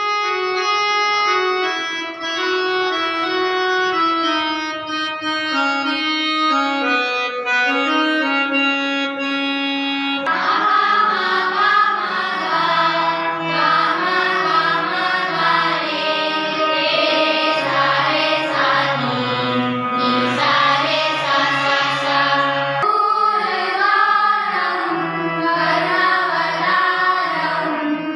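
Indian classical-style music: a melody of held, organ-like notes, joined about ten seconds in by a fuller ensemble with singing voices.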